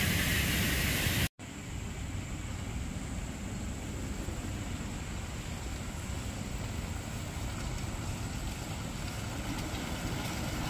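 Ride-on 1-inch-scale train on 4.75-inch gauge track rolling toward the listener: a steady low rumble that grows slowly louder as it comes closer. The sound cuts out abruptly for a moment about a second in.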